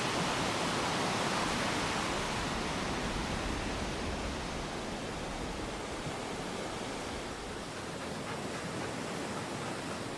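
Surf washing onto a sandy beach: a steady hiss that swells over the first couple of seconds, then settles.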